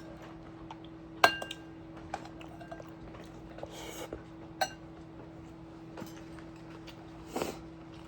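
Eating utensils clinking against dishes: scattered light clicks, with a sharp clink that rings briefly about a second in and another near the middle, over a steady low hum.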